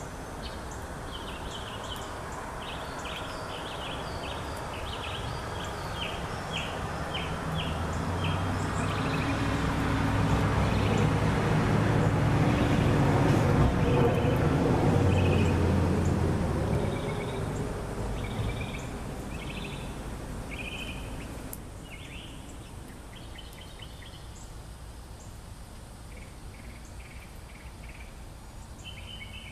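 Small birds chirping and calling throughout, starting with a quick run of repeated notes. Midway a passing vehicle rises to become the loudest sound, then fades away.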